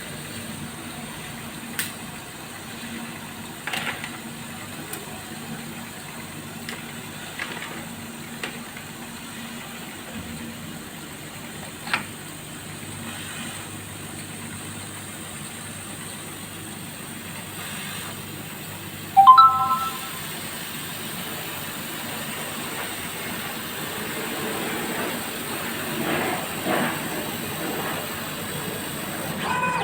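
CO2 laser cutting machine running with a steady hum and hiss, with a few sharp ticks. About two-thirds of the way through, a short three-note electronic beep sounds from the machine.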